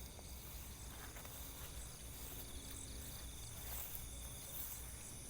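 Steady, high-pitched chorus of crickets and other insects in a rice paddy, with a faint low rumble underneath.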